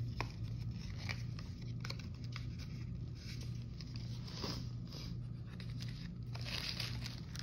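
Paper and packaging being handled: rustling, crinkling and light taps and clicks, over a steady low hum.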